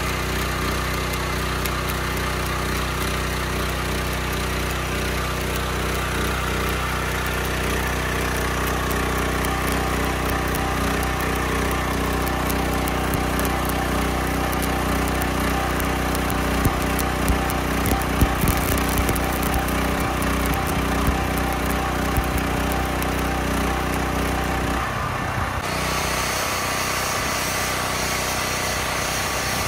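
Small engine of an engine-drive welder-generator running steadily under welding load, with the crackling hiss of a stick-welding arc over it and a few sharper pops. Near the end the engine's note changes.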